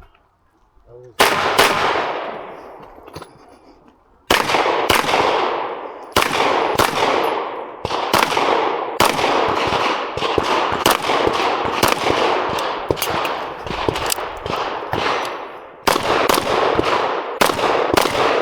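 Pistol shots during a timed match stage: a single shot about a second in, then after a pause of about three seconds a long string of shots, mostly in quick pairs, with a brief gap near the end. Each shot trails off in echo.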